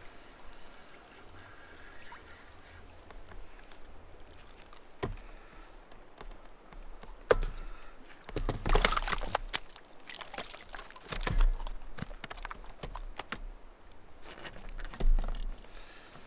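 A hooked pike being landed at the side of a canoe: a spell of quiet reeling, then a run of sudden splashes and knocks as the fish thrashes at the surface and is lifted aboard.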